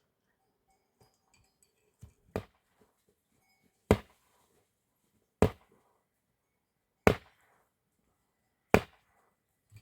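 Axe chopping wood: five heavy, evenly paced strikes about one and a half seconds apart, the first preceded by a lighter tap.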